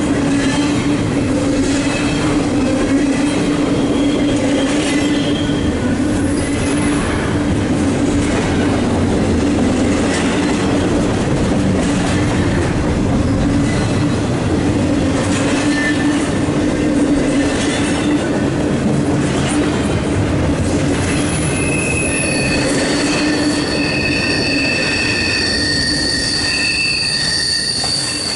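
Double-stack intermodal freight cars rolling past close by: a steady loud rumble of steel wheels on rail with scattered clicks. From about three quarters of the way in, several high squealing tones join in.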